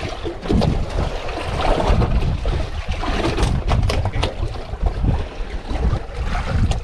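Wind buffeting the microphone on a small boat at sea, with water lapping against the hull and scattered short knocks and slaps.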